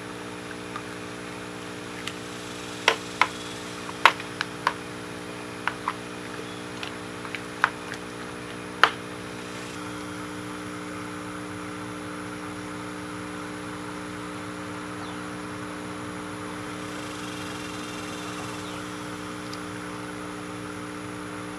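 Air pump humming steadily as it bubbles air through a bucket of compost tea. A hand stirring in the water makes a run of sharp splashes and knocks over the first nine seconds or so, after which the steady bubbling and hum continue on their own.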